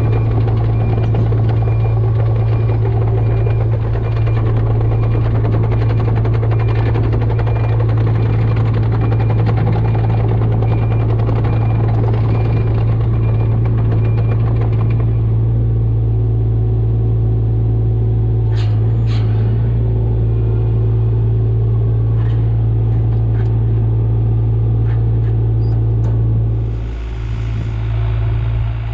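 Mini excavator's diesel engine running steadily at working speed, with busier working noise over the first half that settles about halfway through, and a couple of sharp metallic knocks a little past the middle.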